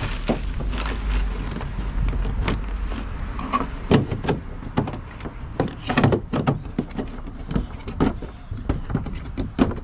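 Hard plastic knocks and clicks as a storage bag is pushed down into a kayak's round deck hatch and the plastic hatch cover is fitted and pressed shut, with a low rumble over the first few seconds. The loudest knocks come about 4, 6 and 8 seconds in and again near the end.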